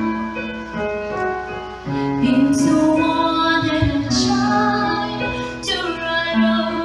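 A woman singing a slow worship song with long held notes over instrumental accompaniment.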